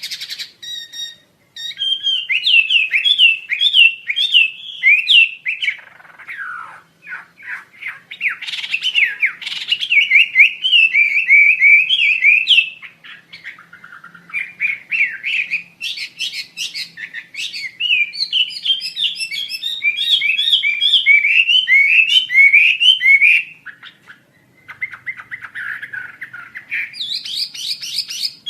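Asian paradise flycatcher (wambi asia) singing: long runs of fast, repeated high chirping notes, with a few lower falling notes early on and brief pauses between phrases.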